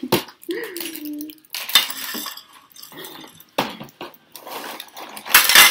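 Metal spoon clinking and scraping against a ceramic cereal bowl, a few separate sharp clinks with the loudest near the end, as cereal is scooped and eaten.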